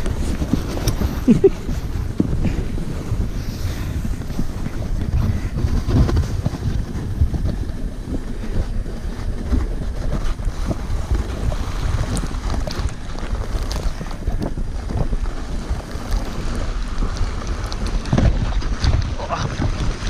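Toboggan runners sliding fast over packed snow, a continuous rushing rumble with occasional short knocks from bumps in the track, mixed with wind buffeting the microphone.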